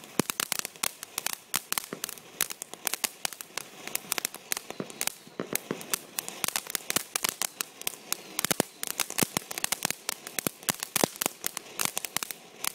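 Ground fountain firework spraying sparks, crackling with a dense, irregular run of sharp pops.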